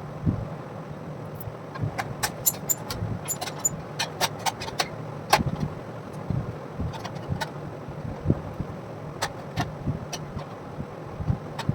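Irregular light clicks and metallic taps, some ringing briefly, over a steady low hum.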